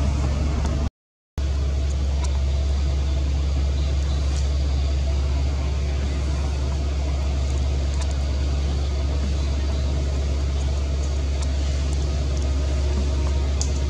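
Steady low rumble that drops out completely for about half a second a second in, with a few faint clicks near the end.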